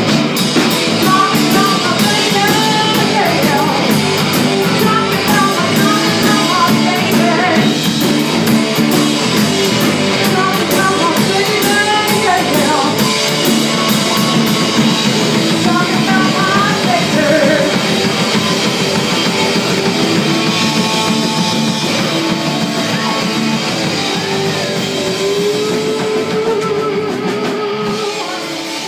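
Live rock band playing: distorted electric guitar, bass, drum kit with cymbals, and a lead singer. The whole mix fades down over the last several seconds.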